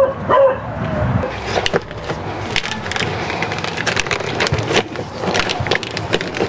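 Plastic wiring harness being handled and pushed into place: many quick clicks and rattles from the plastic connectors and corrugated wire loom. A dog whines briefly near the start.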